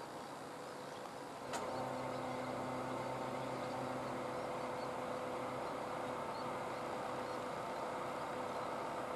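A sharp click about a second and a half in, then a steady hum of several even tones that carries on; the lowest part of the hum fades about halfway through.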